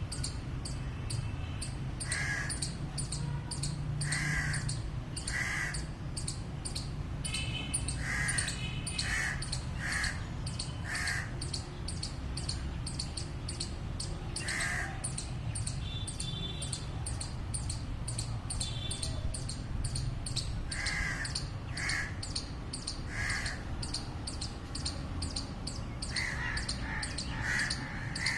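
Squirrel giving short, sharp alarm barks, sometimes singly and sometimes in quick runs of three or four, at irregular intervals. Underneath runs a steady, fast, high-pitched ticking.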